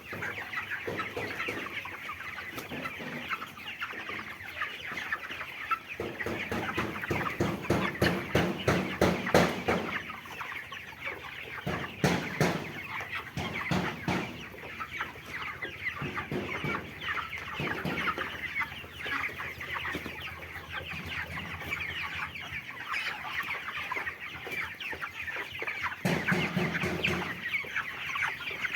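A large flock of broiler chickens clucking and chirping all together in a steady, dense chatter. Bursts of rapid clattering knocks come in the middle.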